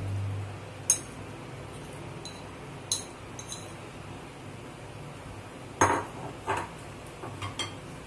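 Kitchen utensils clinking against dishes and a cooking pot: a handful of short, sharp clinks and knocks spread over several seconds, the loudest about a second in and near six seconds.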